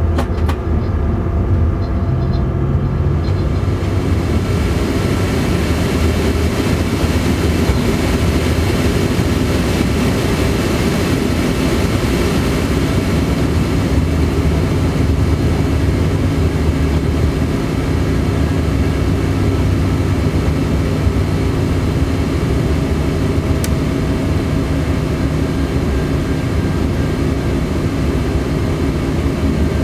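Train running at speed, heard from the driver's cab: a steady rumble of wheels and running gear with a low hum of steady tones, and a rushing noise that grows over the first ten seconds or so. A sharp click near the start and another about 24 seconds in.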